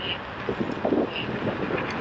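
Wind noise from riding a motorcycle at speed, heard around the helmet: a steady rush with irregular low buffeting thumps.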